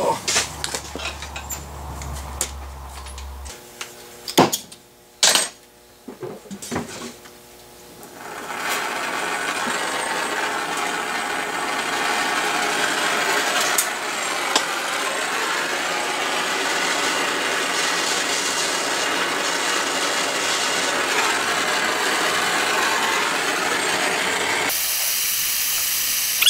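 Knocks and clatter as a camera tripod is carried and set down, then the steady hiss of a gas brazing torch flame held on a steel pin in a vise.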